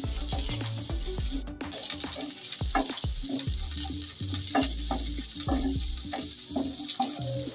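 Chopped onion frying in a little oil in a non-stick kadhai, with curry leaves, green chillies and mustard seeds: a steady sizzling hiss while a spatula stirs and scrapes the pan with many short, light scrapes and taps.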